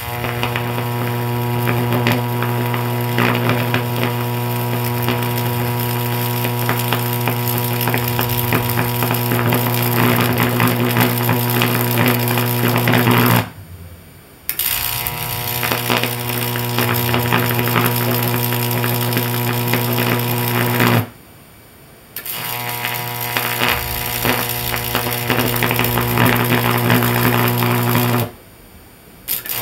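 Sustained high-voltage AC arc from a stack of two microwave oven transformers, fed through a variac, giving a loud, steady mains-frequency buzz with many overtones and crackle. The arc goes out and is struck again three times, about 13, 21 and 28 seconds in.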